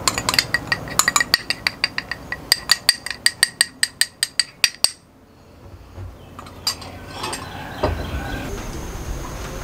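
Small ceramic bowl being tapped to shake salt and chili powder out of it: a quick run of ringing clinks, about four a second at their fastest, that stops about halfway through. A few soft knocks follow.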